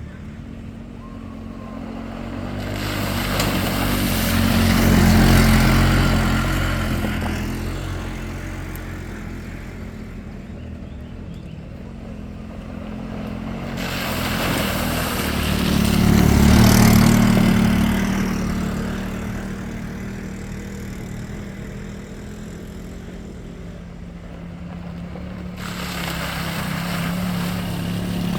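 Off-road vehicle engine running with a steady low hum, the noise swelling louder and fading away in three long waves about twelve seconds apart.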